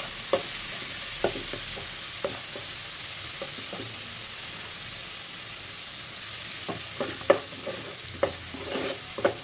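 Onion and garlic paste sizzling in hot mustard oil in a non-stick kadai, just turning pink, with a spoon knocking and scraping against the pan as it is stirred. The knocks come more often near the end.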